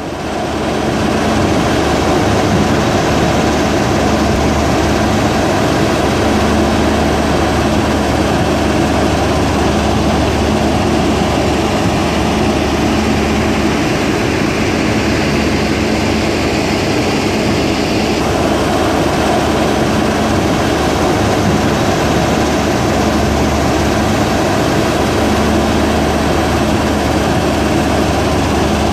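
Mobile stone crushing and screening plant running: a steady, loud machinery noise with a low diesel-engine hum and a constant mid tone. It fades in at the start, and a thin high hiss drops out about 18 seconds in.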